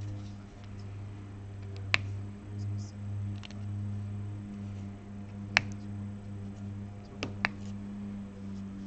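A few sharp, small clicks of diamond painting work: the applicator pen and resin drills tapping on the canvas and gem tray, two of them close together near the end. Under them runs a steady low hum.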